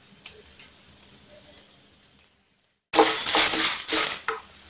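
Dry popcorn kernels rattling and scraping against a non-stick kadai as a wooden spatula stirs them through hot oil, in several strokes that start suddenly about three seconds in. Before that there is only a faint hiss with a tick or two.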